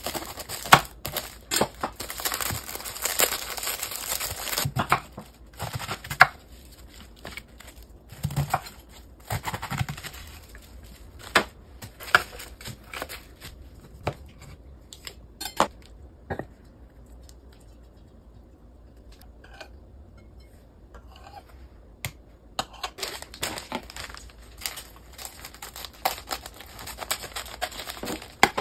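Food-prep sounds: a knife slitting and crinkling a plastic bag of shredded cabbage, with sharp knocks of the blade on a bamboo cutting board. Near the end, kitchen scissors snip through a crinkly plastic food package. There is a quieter spell in the middle.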